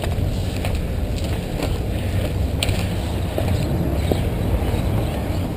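Wind buffeting a bike-mounted camera's microphone and bicycle tyres running over cracked pavement: a steady low noise with a few light clicks and rattles.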